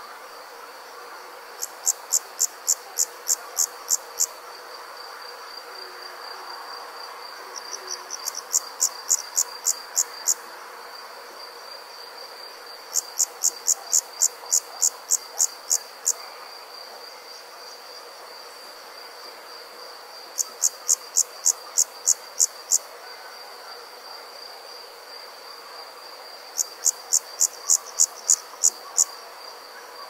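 Night insect chorus: a steady high-pitched trill runs on underneath while a louder insect call comes in series of about ten sharp chirps at roughly four a second, repeating every five to seven seconds, five series in all.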